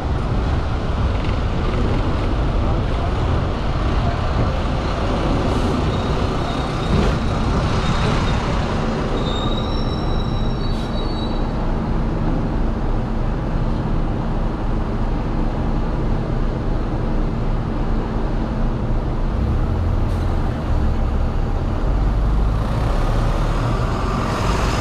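Hong Kong double-decker tram running along its street track: a steady rumble and rattle of steel wheels on the rails, with a brief high squeal of the wheels about ten seconds in.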